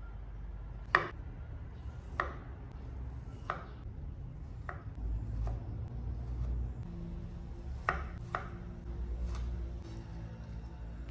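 Chef's knife slicing through peeled gold kiwi and knocking on a wooden cutting board, about eight separate cuts roughly a second apart, the first the loudest.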